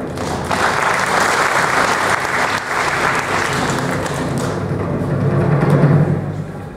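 Audience applauding over background music with drums; the clapping starts about half a second in and dies away after about four seconds, while the music carries on.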